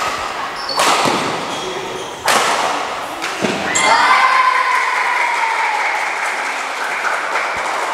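Badminton racket strikes on a shuttlecock during a doubles rally, four sharp echoing hits a second or so apart, followed about four seconds in by a drawn-out high-pitched sound that slowly falls in pitch.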